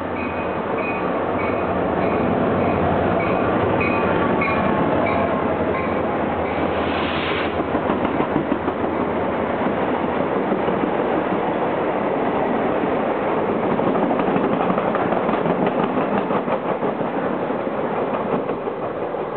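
A Metro-North GP35R diesel locomotive passes close by with its engine running, a bell-like tone pulsing about twice a second for the first six seconds. After a short hiss about seven seconds in, the unpowered M7 electric cars it tows roll past, their wheels clicking rapidly over the rail joints.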